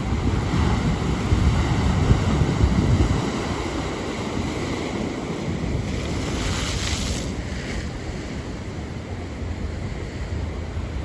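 Atlantic surf breaking and washing in, with wind buffeting the microphone. A deep rumble is loudest in the first three seconds, and a hissing wash swells up near the middle.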